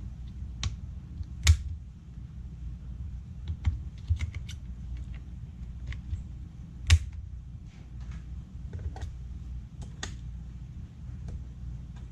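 Irregular clicks and taps on a Dell Latitude 7480 laptop as hands work on it, two sharper knocks standing out about a second and a half in and again about seven seconds in, over a low steady hum.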